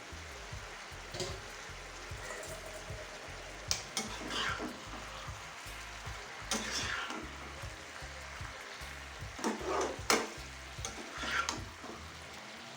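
Pumpkin and Malabar spinach sizzling in oil in a kadai, with several short scrapes of a spatula stirring them, about a second in and then every few seconds.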